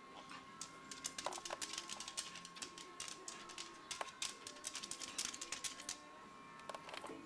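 Dogs' claws clicking and tapping on a hard vinyl kitchen floor as they move about: a quick, irregular run of sharp clicks, densest in the middle and thinning out near the end.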